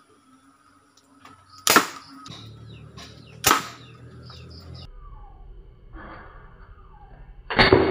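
Homemade PVC alcohol-combustion toy gun firing steel balls: two sharp pops about two seconds apart, then a louder crack with a short tail near the end.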